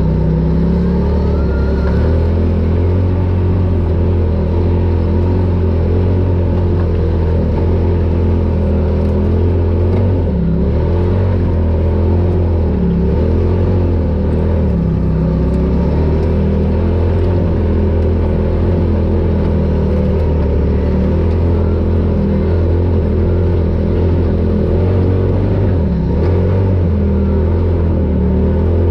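Polaris RZR Pro XP side-by-side's engine running steadily while driving off-road, its note easing briefly around ten seconds in and again near the end as the throttle changes.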